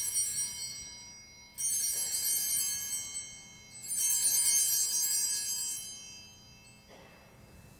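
Altar bells (a cluster of small bells) shaken at the elevation of the consecrated host: three rings, the first already fading at the start, the others about one and a half and four seconds in, each a bright jangle of many small bells dying away.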